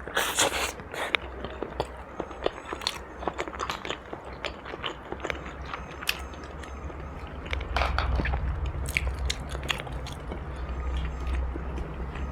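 Close-up biting and chewing of crunchy food. A loud crunching bite comes near the start, then chewing with many small crisp crunches.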